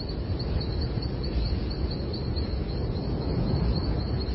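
Outdoor field recording: a steady low rumble under a high chirp that repeats evenly, about three times a second.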